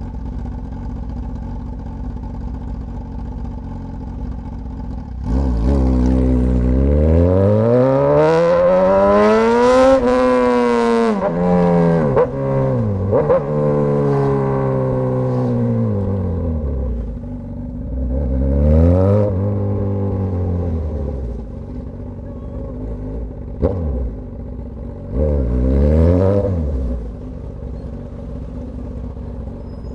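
Straight-piped Suzuki GSX-S1000 inline-four engine idling, then revving hard: its pitch climbs steeply for several seconds and falls away in steps. Two shorter rises and falls of the revs follow before it settles back to a lumpy idle.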